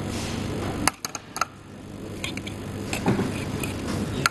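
A steady low rumble that stops suddenly about a second in with a sharp click, followed by a few scattered clicks and light taps.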